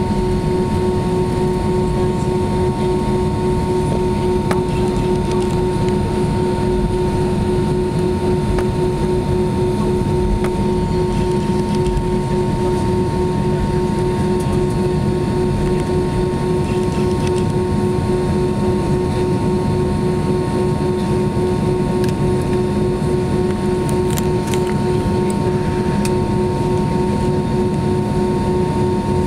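Steady cabin noise inside an Airbus A320-232 taxiing: its IAE V2500 engines at idle give an even hum with two steady tones over a low rumble.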